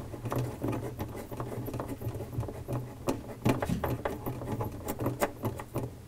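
Refrigerator light bulb being twisted into its socket by hand: a stream of small irregular scratchy clicks as the bulb turns against the plastic housing, over a faint low hum.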